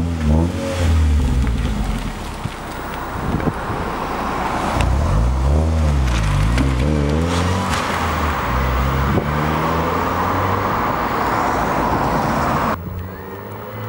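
Mazda MX-5's four-cylinder engine and exhaust revving up and down in repeated throttle blips, then running louder under a steadier pull. Near the end the sound drops suddenly to a quieter, steady engine note that slowly rises.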